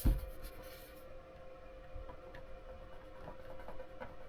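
Quiet room tone with a faint steady hum, a soft knock at the very start and a few light ticks.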